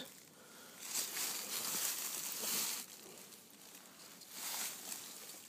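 Footsteps in dry fallen leaves: a spell of rustling from about a second in to nearly three seconds, and a shorter one a little before the end.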